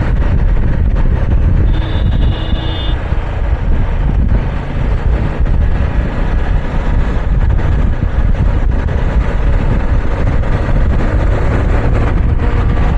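Heavy wind blast buffeting a collar-clipped lavalier mic on a moving motorcycle at about 50–60 km/h: a loud, steady rumble of wind and road noise. A brief high tone sounds about two seconds in.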